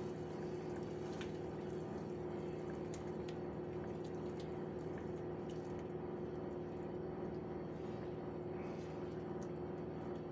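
A silicone spatula stirring rice, lentils and water in a pot, with light sloshing and scraping, over a steady hum.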